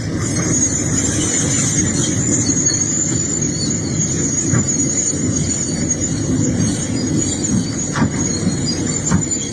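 Excavator running steadily at work, with a continuous high-pitched squeal above the engine rumble and a few faint knocks.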